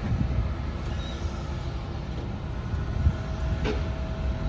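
Low, steady rumble of passing traffic. A faint steady whine joins about three seconds in, with a single sharp click shortly after.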